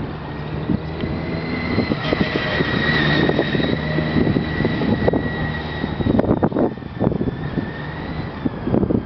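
A car engine running with a steady high-pitched whine that swells a little about three seconds in and fades out near the end, under gusts of wind on the microphone.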